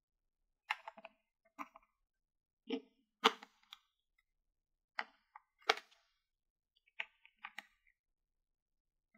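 Small hard plastic toy pieces being handled and set down: about a dozen sharp clicks and taps at uneven intervals, the loudest about three seconds in.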